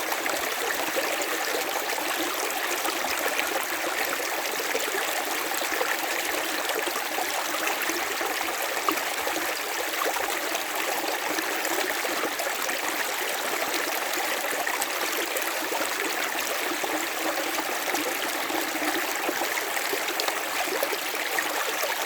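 River water running over stones, a steady rushing with fine trickling and gurgling.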